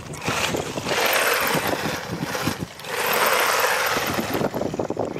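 Haiboxing 2995 RC desert truck driving fast on wet asphalt, its tyres and drivetrain making a rushing noise that swells twice as it passes close by.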